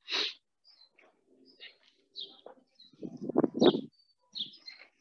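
Birds calling: a few short, high chirps scattered through the pause, with a louder, lower sound a little after three seconds in.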